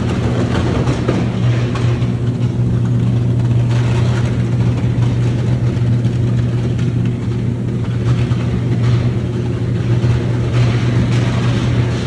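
Electric arc furnace melting scrap steel: a loud, steady low hum from the arc with irregular, harsh crackling over it.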